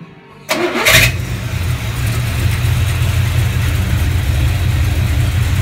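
A 454 big-block Chevrolet V8 cranks briefly, fires about a second in with a short flare, then settles into a steady low idle. It is running on a freshly wired Summit multiple-spark ignition box.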